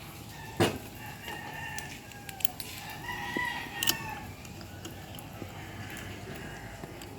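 A rooster crowing, one long call that rises and falls, with a sharp click about half a second in and a few lighter clicks after.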